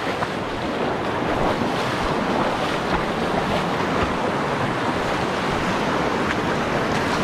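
Fast, shallow mountain stream rushing and splashing over boulders: a steady rush of white water.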